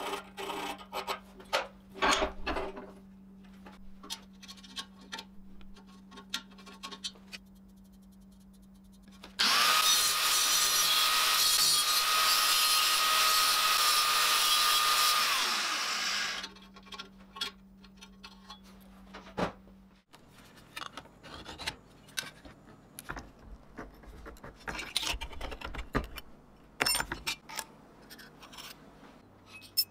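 Metalworking on steel: a few filing strokes and clicks. Then an electric power tool runs for about six seconds with a steady whine and winds down as it stops. Scattered light scrapes and taps on steel follow.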